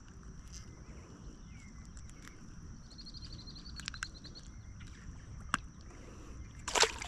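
Quiet open-air ambience on a lake from a canoe: a low, steady wind rumble with a faint high hum, a few small knocks, and a brief louder rush of noise near the end.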